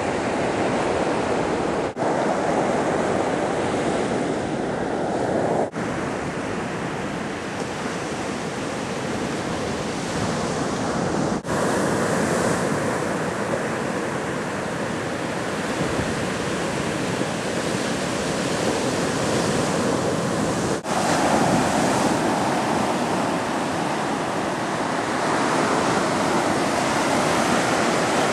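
Sea surf breaking and washing up on a sandy beach, a steady rushing wash that swells and eases, dropping out for an instant a few times.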